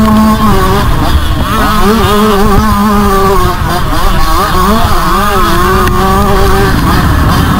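Motocross bike engine heard from on board, revving hard under racing load, its pitch climbing and dropping again and again as the throttle is worked and gears change through the corners.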